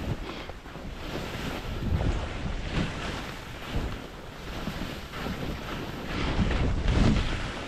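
Wind rumbling over a GoPro's microphone during a downhill ski run, with skis hissing and scraping through chopped powder snow. The sound swells and eases with each turn, loudest near the end.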